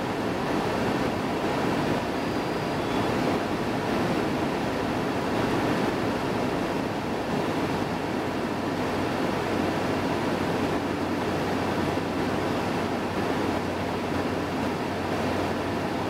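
Steady rush of wind and tyre noise from the Rimac Nevera electric hypercar running flat out at about 410 km/h under full throttle.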